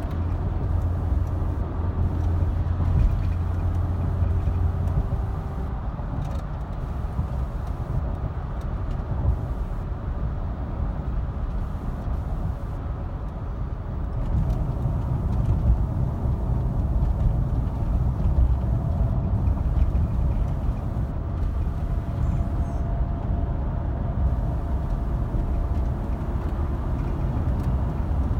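2007 Cadillac Escalade driving, a steady low road rumble with scattered light rattling clicks from the passenger side over small bumps. The rattle persists despite new struts, strut mounts and stabilizer links and bushings; its cause is unknown.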